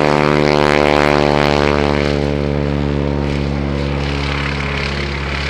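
Grumman Ag-Cat biplane's radial engine and propeller running steadily on a low pass, loudest in the first couple of seconds and then easing off slightly as it goes by.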